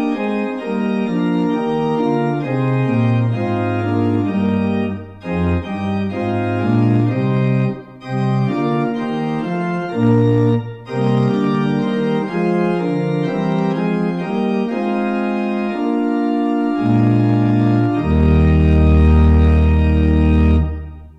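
Organ playing sustained chords over a moving bass line, with brief breaks between phrases. It ends on a long, loud held chord with deep bass that stops about a second before the end.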